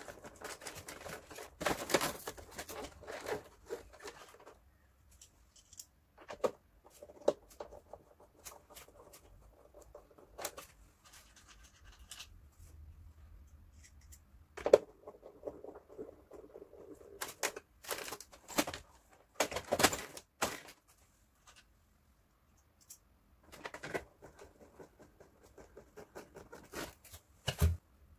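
Plastic parts of a Daikin wall-mounted air-conditioner indoor unit being handled and fitted back together: irregular clicks, knocks and scraping, with a few sharper knocks spread through and short quiet gaps.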